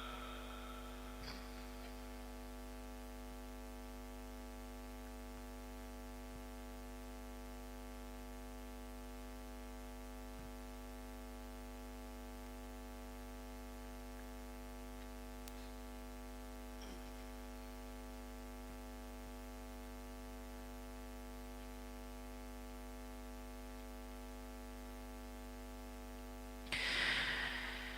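Steady electrical mains hum from a microphone and loudspeaker system, a low buzz with a stack of steady tones above it. A brief louder sound breaks in about a second before the end.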